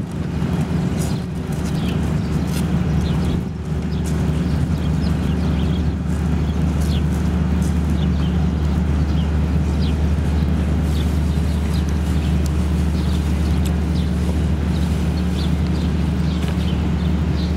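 Steady low machinery hum, with frequent short bird chirps scattered over it.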